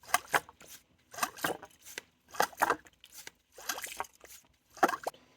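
Hand-operated vacuum pump being worked in steady strokes, a pair of quick clicking, scraping sounds about every second and a bit, drawing air out of a car's cooling system while it is refilled with coolant.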